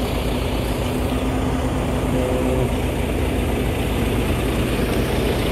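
Diesel semi-truck engine idling steadily.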